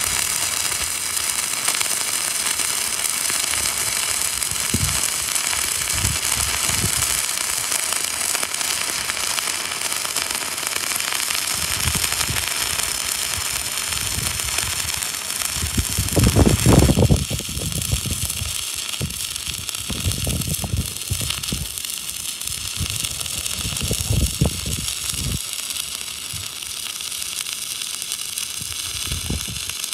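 Stick welding arc burning a 3/32 in. 7014 electrode run on DCEN: a steady crackling hiss, broken by louder irregular pops, the biggest about 16 seconds in.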